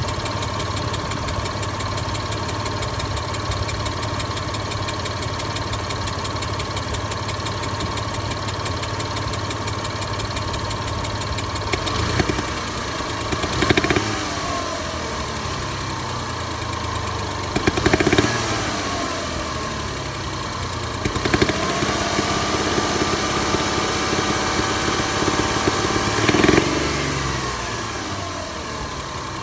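Car engine idling, revved and let fall back about four times in the second half. The owner hears a hissing tick and knocking from the valve lifter area in it.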